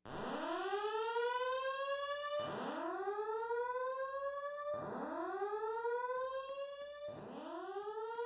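Fire alarm voice evacuation system sounding its slow-whoop evacuation tone. There are four rising whoops, each sweeping upward over about two and a half seconds before the next begins.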